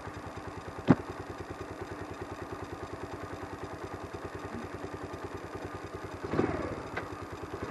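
Motorcycle engine idling with an even, rapid putter. A sharp click comes about a second in, and a brief louder sound a little after six seconds.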